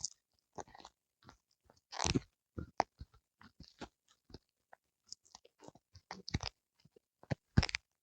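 A Pomeranian–spitz mix dog chewing a whole conger eel: irregular crunching bites, with a few louder crunches about two seconds in, around six seconds and near the end.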